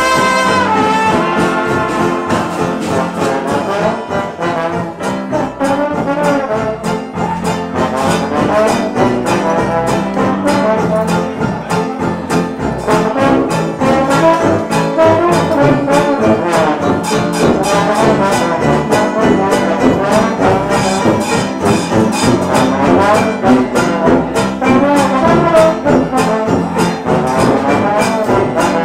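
A traditional jazz band plays, with trumpet and trombone to the fore over a steady beat from a rhythm section of sousaphone and drums.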